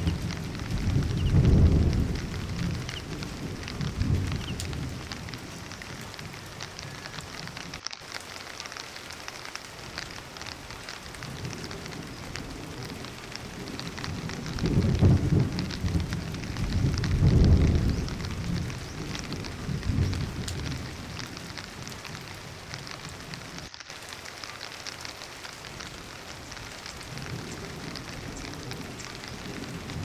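Heavy rain pouring, a steady dense patter. Deep rumbling swells rise and fade near the start and again about halfway through.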